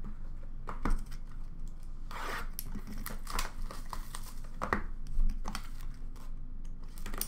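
Trading-card packaging and cards being handled: tearing and crinkling of wrapping, with scattered short clicks and taps of cards and boxes.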